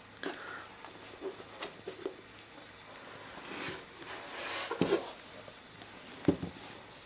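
Handling noise from a new laptop being unwrapped from its packaging: rustling of the wrapping with scattered clicks and a few knocks, the loudest a sharp knock about six seconds in.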